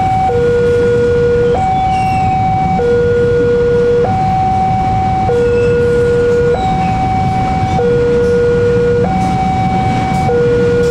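Railroad crossing warning alarm sounding its two-tone signal, a low tone and a higher tone alternating about every second and a quarter. A low rumble from freight wagons rolling past on the track runs underneath.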